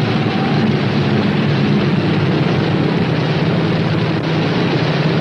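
Northrop P-61 Black Widow's right-hand Pratt & Whitney R-2800 radial engine running steadily, just after starting, with a loud, even drone.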